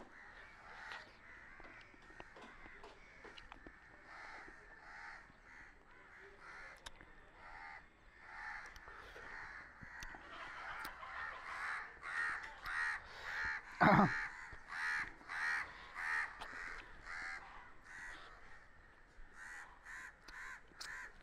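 Crows cawing, fairly faint: a long run of short repeated calls, sparse at first and coming in quick succession through the second half. One louder call falls steeply in pitch about two-thirds of the way through.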